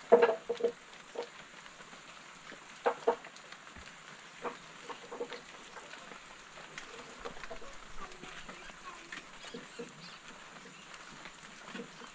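Chickens clucking: a few short calls, the loudest just at the start and two close together about three seconds in, with smaller scattered clucks after.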